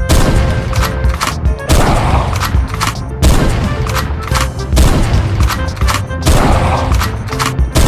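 Loud music with steady bass and a dense run of rapid, heavy percussive hits, swelling in clusters about every second and a half.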